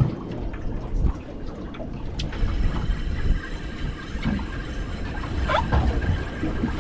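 Wind buffeting the microphone and sea chop against a small fishing boat's hull, an uneven low rumble, with one sharp click about two seconds in.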